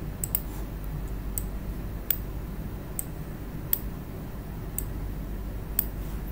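Sharp single clicks from working a laptop, about seven of them at irregular intervals roughly a second apart, over a steady low hum.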